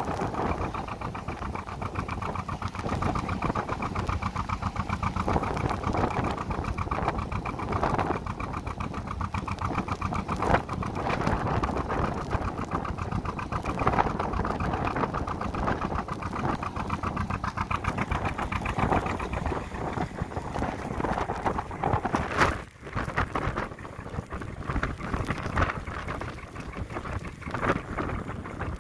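Narrowboat engine running steadily under way, its even firing pulses continuous, with wind gusting across the microphone.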